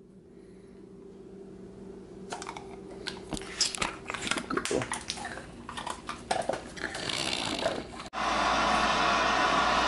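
A dog crunching and chewing a treat, a run of irregular sharp crackles and clicks. Near the end it cuts suddenly to a louder steady rushing noise.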